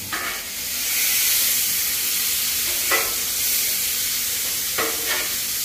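Ground beef frying on a Blackstone flat-top griddle: a steady sizzle that swells about a second in, with a couple of brief spatula sounds about three and five seconds in.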